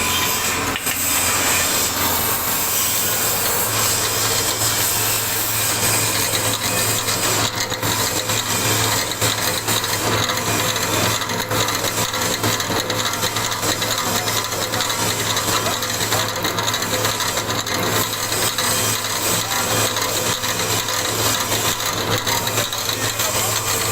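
Wood pellet mill running under load as it presses sawdust into pellets: a steady low hum under a constant gritty, rasping grind.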